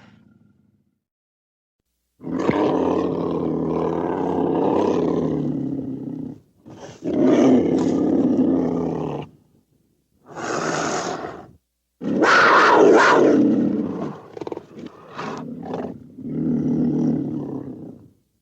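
Vintage sound-effect recording of a cougar calling: after a short silence, a series of about five loud, rough calls, the first drawn out over about four seconds and the rest shorter, with brief pauses between them.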